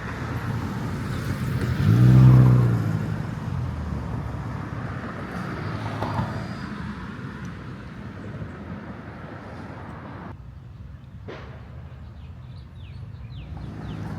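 Street traffic: a motor vehicle's engine passes close, loudest about two seconds in and fading away, over a steady background of road noise.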